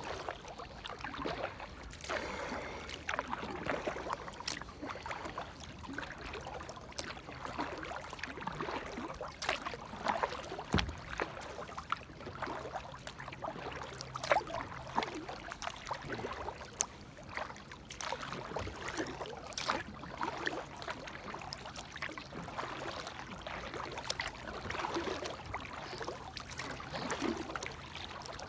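Kayak paddle working on calm river water: repeated splashes and drips as the blades dip in and lift out, stroke after stroke.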